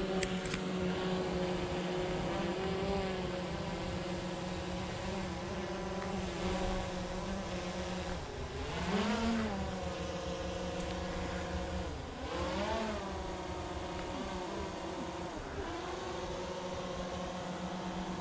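DJI Mavic quadcopter's propellers whining steadily as it hovers close by. The pitch dips and swings back up twice about halfway through as it manoeuvres.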